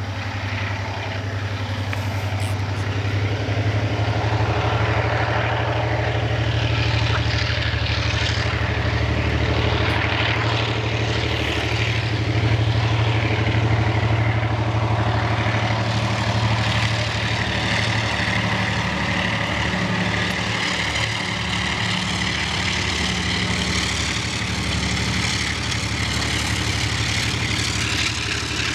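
A train running past with a steady low engine drone and rattling throughout, with insects, frogs and birds calling behind it.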